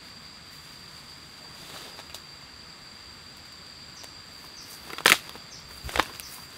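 Footsteps crunching through leaf litter and brushing through jungle undergrowth close by, with two loud steps about a second apart near the end, over a thin steady high tone.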